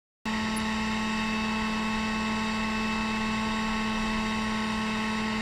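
Electric heat gun running steadily, its fan motor giving a constant hum with a strong low tone and a rushing-air hiss; it starts suddenly a moment in.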